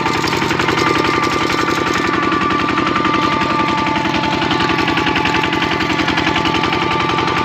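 Kubota RT-series walking tractor's single-cylinder diesel engine running steadily while the tractor drives along, pulling a trailer: a fast, even chugging.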